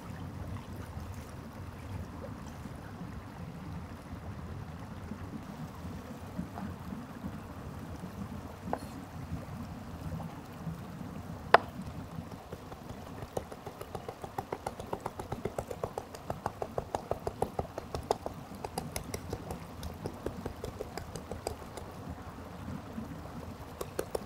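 Knife chopping raw beef into mince on a bamboo cutting board: rapid, regular chops from about halfway in, after one sharp knock. A stream runs steadily underneath.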